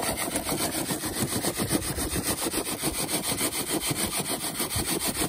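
Sand and fine gravel being sifted through a wooden-framed wire-mesh sieve set on a plastic basin. The sieve is shaken back and forth in a steady rhythm of about four strokes a second, and grit scrapes and rattles on the mesh.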